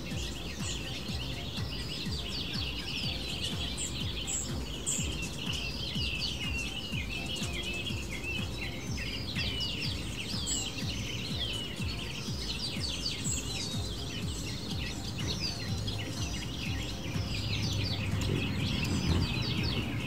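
Many small songbirds chirping and twittering continuously, with short quick notes overlapping one another, over a steady low rumble.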